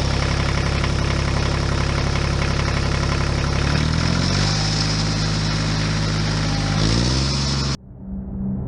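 Motor vehicle engine running steadily, its pitch rising twice as it revs up, then cutting off abruptly near the end. A quieter low hum follows.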